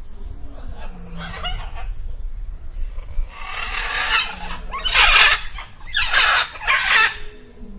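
Zebra calling: a string of harsh, barking calls, with a short one about a second in and four loud ones in quick succession from the middle on.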